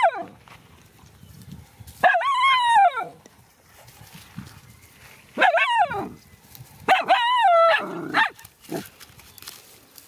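Young dog whining in three separate high-pitched calls, each about a second long and rising then falling in pitch.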